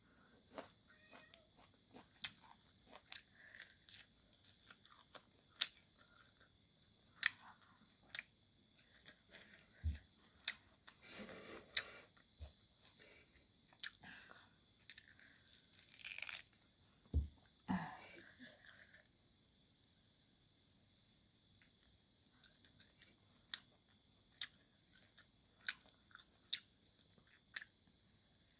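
Faint, irregular mouth clicks and smacks of someone eating fried pork, with crickets chirping steadily in the background.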